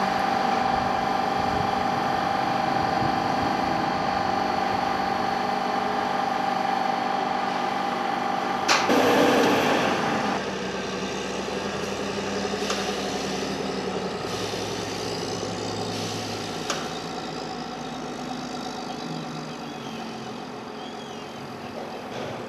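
Wheel loader's diesel engine running steadily, with a steady whine over it. About nine seconds in there is a loud burst of noise lasting over a second. After that a quieter steady hum of plant machinery continues, with a couple of faint knocks.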